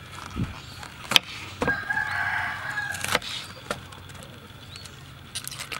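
A rooster crows once, a steady-pitched call of about a second and a half, over the sharp knocks of a knife cutting cabbage on a wooden board.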